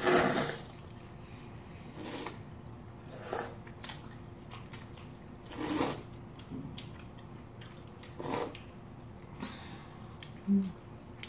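Cold noodles slurped up from chilled broth, five or six times, each slurp under a second, with light clicks of chopsticks and a spoon against the bowls. A brief hum near the end.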